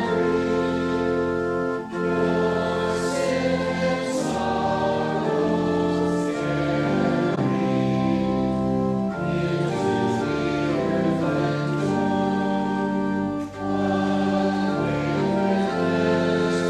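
Congregation singing a hymn verse in unison with organ accompaniment: sustained chords that change about once a second, with a short break for breath about two seconds in and again near the end.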